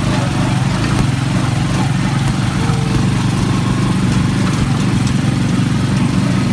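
Small motorcycle engine of a three-wheeled mototaxi running steadily under way, heard from inside the passenger cab.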